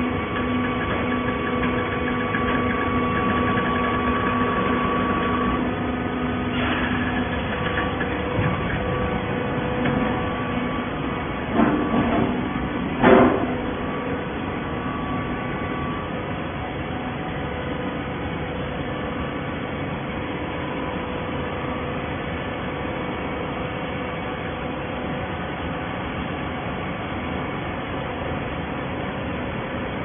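Horizontal hydraulic baling line running with a steady mechanical drone. A held hum sounds for the first five seconds or so, and two sharp metallic clanks come a little before the midpoint, the second the louder.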